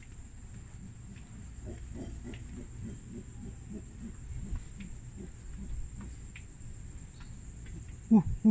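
Steady, high-pitched chorus of rainforest insects, crickets or katydids, with faint low repeated calls underneath. Near the end, a few loud, short pitched sounds break in.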